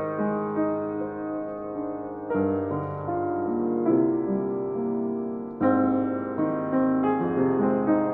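Grand piano playing a slow passage of sustained chords and melody notes, with new chords struck twice, recorded with a pair of Neumann KM184 small-diaphragm condenser microphones.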